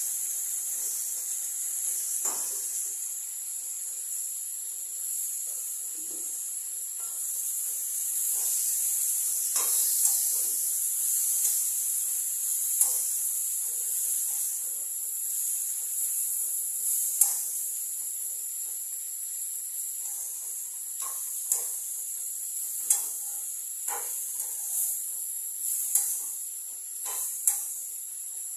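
Vegetables sizzling in hot oil in a pan, a steady hiss, while a metal spoon scrapes and taps against the pan as they are stirred. The sharp taps come more often in the second half.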